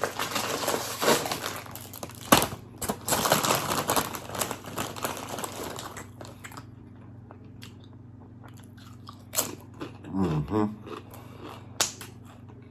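Close-up crunching and chewing of spicy chips, loud and dense for the first half with a sharp crack about two seconds in, then quieter chewing with small clicks. A short hummed "mm" comes a little after ten seconds.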